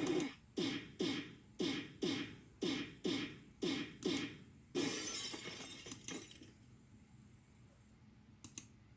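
A beatbox-style drum beat: about two punchy hits a second, each dropping in pitch, with a hiss between them. The beat stops about six seconds in, and a couple of faint clicks come near the end.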